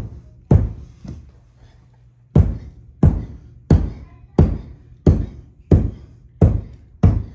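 Hammer blows on a metal hand tool held upright at a carpet edge: a steady run of sharp knocks, each with a dull thud and a brief ring, about one and a half a second, with a pause of about a second near the start.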